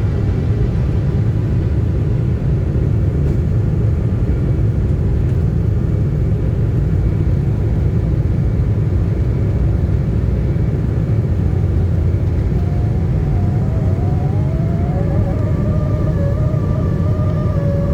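Loud, steady low rumble of an Embraer E190 jet's engines and airflow heard in the cabin during takeoff. About thirteen seconds in, a wavering whine starts, bends up and down, then settles into a steady tone. This is an unusual sound that the passenger had never heard before and thinks is probably nothing bad.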